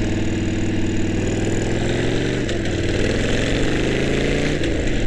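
Harley-Davidson motorcycle's V-twin engine running under way, heard from a helmet-mounted mic. Its pitch dips about halfway through, climbs steadily, then dips again near the end, like gear changes while accelerating.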